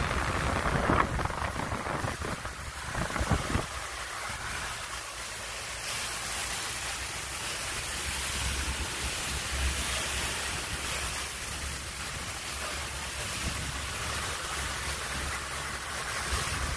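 Wind rushing over the microphone and water rushing along the hull of a small motorboat under way, over a low steady drone. Gusty for the first few seconds, then steadier.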